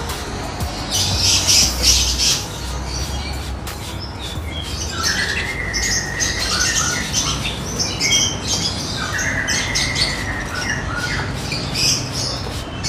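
Lovebirds squawking and chattering in shrill bursts, busiest about a second in, with two longer drawn-out calls in the middle.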